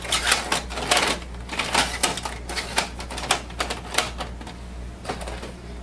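Plastic paper tray of a Brother MFC-J5920DW printer being handled and slid out, a quick run of clicks and knocks that thins out near the end.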